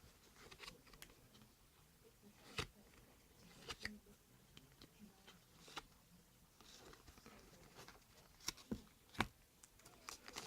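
Quiet handling of trading card packs and cards: scattered light clicks and snips, with a brief soft rustle of wrapper partway through.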